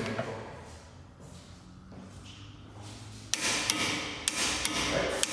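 Metal hand tools clicking and clinking on a coilover strut as its lock collar is tightened to torque. There is one sharp click about three seconds in, then several lighter clinks.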